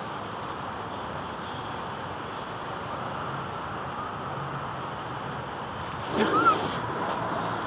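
Steady rushing outdoor noise of wind or surf on the microphone. About six seconds in there is a brief louder sound with a short chirp.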